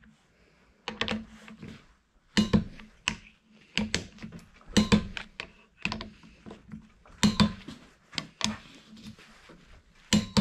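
Metal clicking of a hand ratchet and socket in short irregular bursts as the ring-gear bolts on a differential carrier are run down snug, before final torque.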